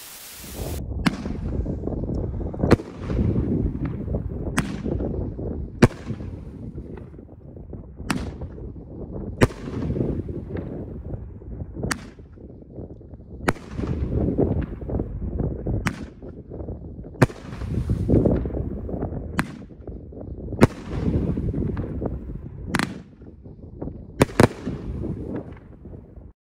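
Pyro Diablo 'Croc Bite' 9-shot fireworks cake firing palm shells: a string of loud, sharp booms roughly every one and a half to two and a half seconds, with a low rumble between them. A short burst of hiss comes at the very start.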